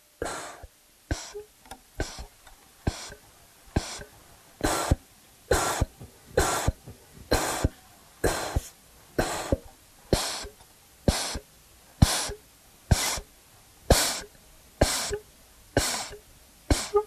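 Electronic music score made of short bursts of hiss, about one a second, with fainter clicks between them, in a steady even rhythm.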